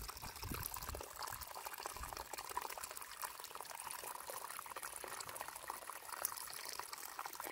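Steady, faint rush of hot spring water running from a rock crevice, with faint ticks of quail eggshell being peeled.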